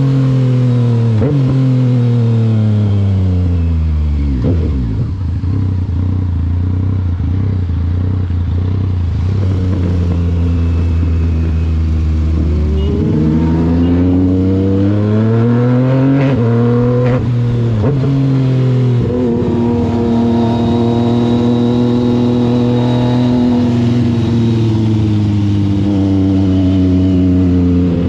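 Yamaha MT-09's three-cylinder engine on the move: revs fall away over the first few seconds to a low steady note, then climb again from about eleven seconds in, drop sharply at a quick upshift, and settle into a steady cruise.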